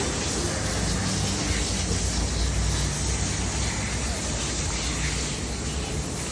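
Hose-fed fish scaler spraying water steadily as it is run along a whole fish, stripping off the scales: an even, unbroken hiss.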